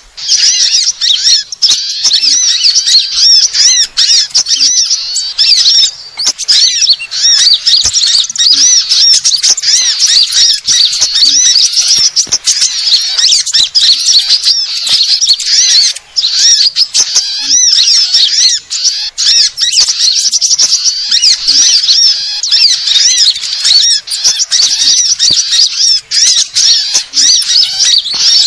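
Bird-lure recording of many small songbirds calling at once: a dense, loud, unbroken chatter of high chirps, squeaks and trills, made to draw small birds in.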